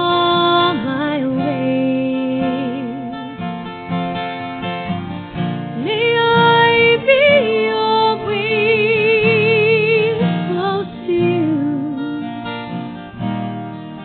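Music: a solo voice singing slow, held notes with vibrato over an acoustic guitar accompaniment.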